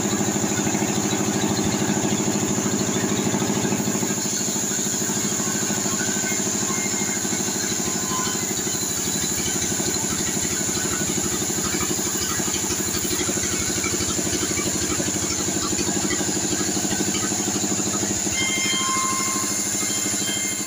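Bandsaw mill running steadily while sawing a sengon log: a constant engine drone with a fine, rapid pulse, and a steady high whine above it.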